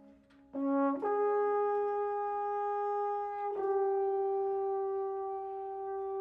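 Solo brass instrument from a brass quintet playing alone after a brief pause: it enters about half a second in, steps up to a long held note, re-sounds the same note about three and a half seconds in, and sustains it.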